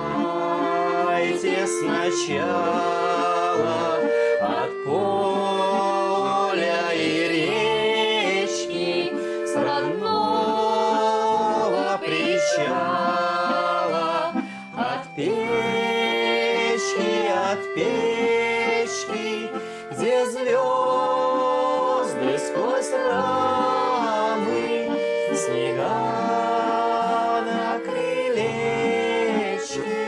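A mixed group of men and women singing a Russian song together, accompanied by a button accordion and an acoustic guitar.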